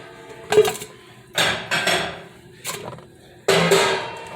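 Kitchen handling sounds: a sharp knock with a short ringing, like a pot or dish, about half a second in, followed by two longer noisy rustling bursts.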